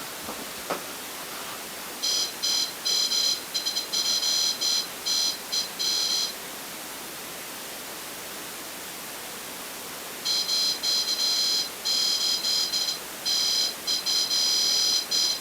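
Electronic alarm beeping: a high, multi-tone electronic chirp that switches on and off in short irregular spurts, in two runs of about four and five seconds.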